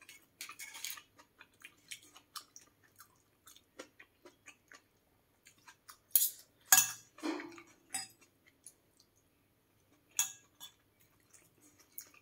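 Eating sounds: soft chewing clicks, with a spoon and fork clinking and scraping on a ceramic plate, loudest in a cluster about halfway through and once more near the end.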